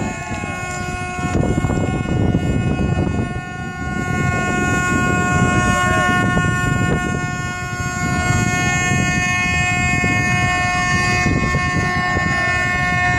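A horn blowing one long, unbroken blast, sounded for the launch of a tanker sliding down the slipway, over a steady low rumble of wind and crowd.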